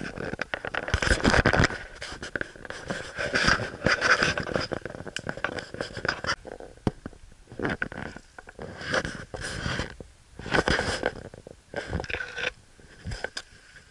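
Irregular bursts of rustling and scraping as the camera is handled and moved through brush and leaf litter.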